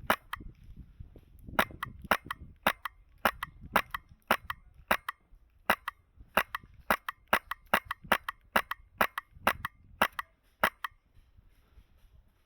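An HPA airsoft rifle fitted with a fully mechanical Polarstar Kythera engine firing a long string of rapid semi-automatic shots, about two or three cracks a second at an uneven pace, stopping near the end.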